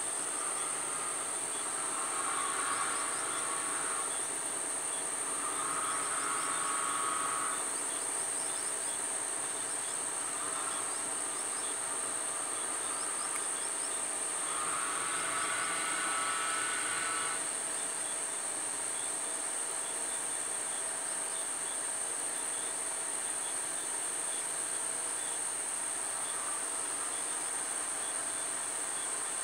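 A steady, high-pitched drone of insects in the grass. A lower whine comes and goes four times, the longest about fifteen seconds in.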